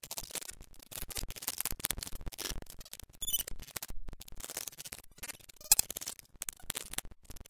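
Glitch-style logo sting sound effect: rapid, irregular digital clicks and static crackle, with a brief high electronic chirp about three seconds in and a louder burst of crackle near six seconds.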